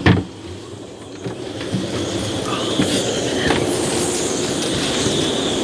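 A knock as the cabin door is opened, then storm wind rushing over the boat and whistling high through the yacht's rigging, getting louder about two seconds in.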